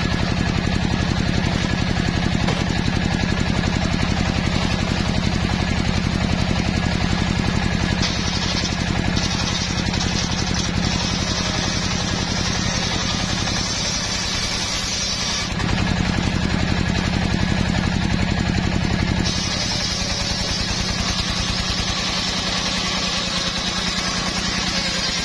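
Engine-driven home-built circular saw bench running steadily while its large blade rips a hardwood plank lengthwise. The hiss of the blade cutting grows louder about a third of the way in, falls away for a few seconds past the middle so the engine note stands out, then comes back.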